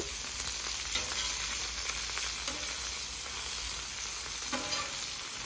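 Thick-cut bacon and sausages sizzling steadily in grease on a flat top griddle, with a few light scrapes of a metal spatula as strips of bacon are lifted and moved.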